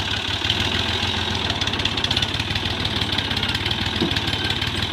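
New Holland Al-Ghazi tractor's diesel engine idling steadily, with an even, fast pulse.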